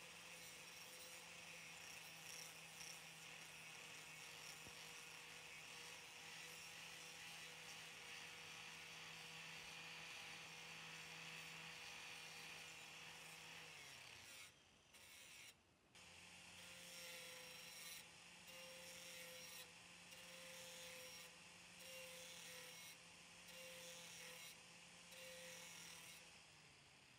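Angle grinder grinding rust off the steel blade of an antique Bowie knife, heard faintly as a steady motor whine with a grinding hiss. About fourteen seconds in it winds down and cuts out briefly, then runs again with short dips about every second and a half, as if the disc is lifted and set back on the blade.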